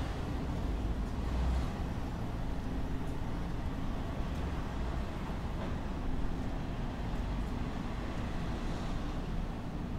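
Road traffic in a residential neighbourhood: a steady low rumble of cars, swelling slightly about a second and a half in.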